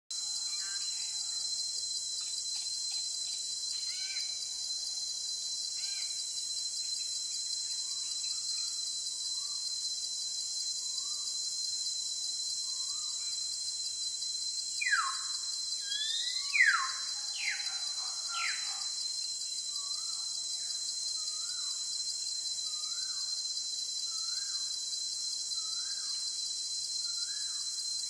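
Birds calling over a steady, high-pitched insect chorus. A short note rising in pitch repeats every second or so through the second half, and a cluster of loud downward-sweeping whistles comes about halfway through.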